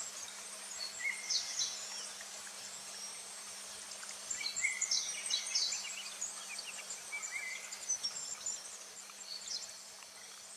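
Summer forest ambience: small birds chirping in short, high calls, busiest about a second in and again from about four to six seconds in, over a steady insect hiss.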